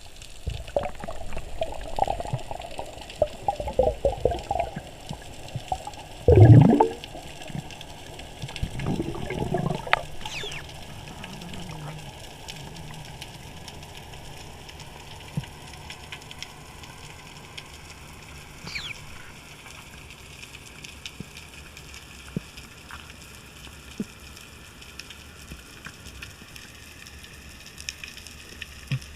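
Underwater sound on a spearfishing dive: bubbling and gurgling water for the first few seconds, a short loud burst of bubbles about six seconds in and more around ten seconds. After that comes a steady low underwater hum with scattered faint clicks.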